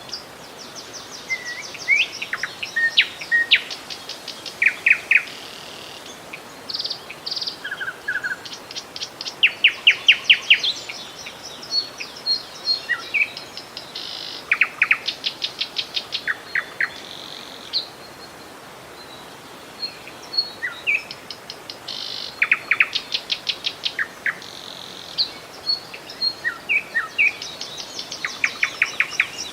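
Several small songbirds chirping and trilling in quick runs of repeated notes, over a faint steady rush of flowing river water.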